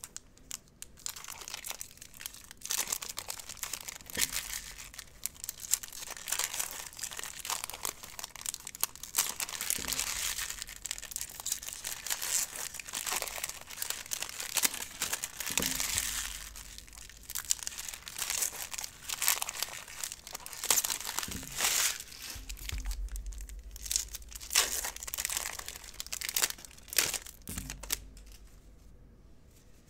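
Trading-card pack wrappers and packaging being torn open and crinkled by hand: a continuous rustling crackle of many small sharp crinkles that eases off near the end.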